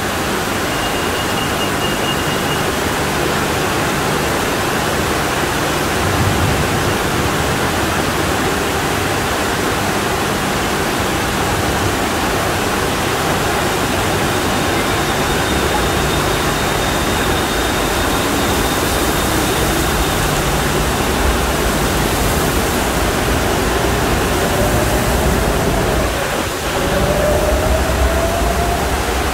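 Torrential monsoon rain and a cascade of rainwater pouring down in a steady, loud rush. An elevated Skytrain pulls away through it, and its motor whine rises in pitch over the last few seconds.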